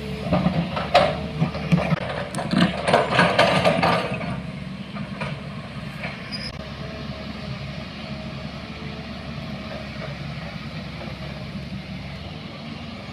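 A vehicle's engine running steadily, with a burst of rattling and knocking during the first four seconds.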